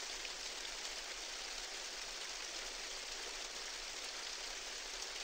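A steady, even rain-like hiss with no rhythm or pitch, starting and stopping abruptly.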